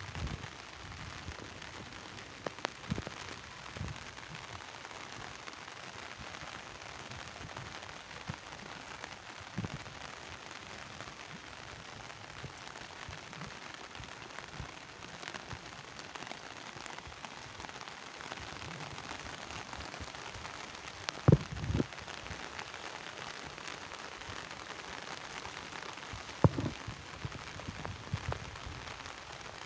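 Steady rain falling, an even hiss, with a few sharp knocks; the loudest come about two-thirds of the way through and near the end.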